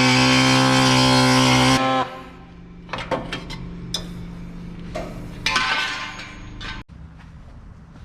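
A loud, steady electric buzz cuts off abruptly about two seconds in. Scattered metallic clinks and knocks of metal parts being handled follow.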